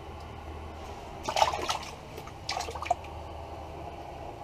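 Water splashing in two short bursts about a second apart, over a steady low hum.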